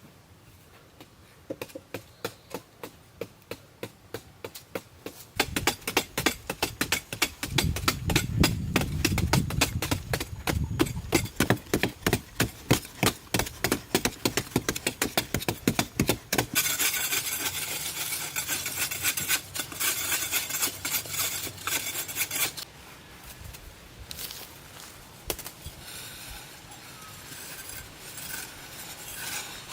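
Hand-tool work: a fast run of sharp knocks several times a second, then a stretch of high scraping about halfway through, then lighter, sparser knocks.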